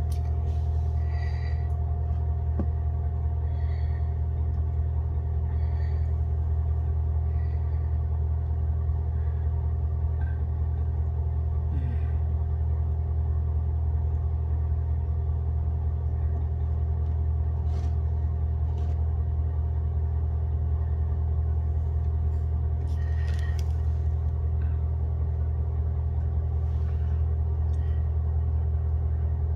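A steady low mechanical hum, like a running motor, unchanging throughout, with a fainter steady higher tone above it and a few faint short chirps now and then.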